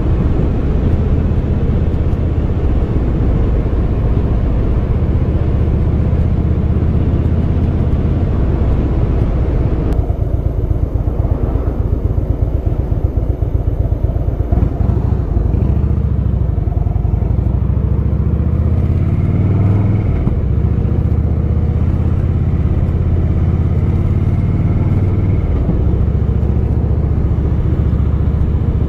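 Harley-Davidson V-twin motorcycle riding along a road, heard from on board: a steady low engine drone under wind noise. About ten seconds in the wind noise drops, and the engine note then rises and falls a few times as the speed changes.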